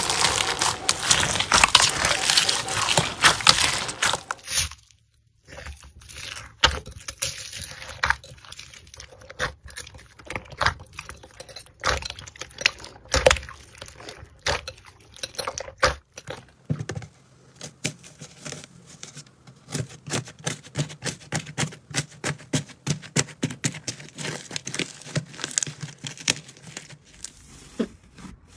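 Hands breaking and squeezing crunchy slimes. First comes dense crackling as a dried, cracked crust is broken for about four seconds. After a short silence come fainter, quickly repeated clicks and squishes from a bead-filled slime and a crusted slime being pressed and torn.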